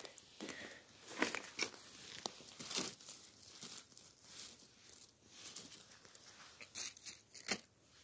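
Dry twigs and forest-floor litter crackling and rustling as a hand reaches through bare branches to pick chanterelle mushrooms, a series of short irregular crackles with the loudest near the middle and end.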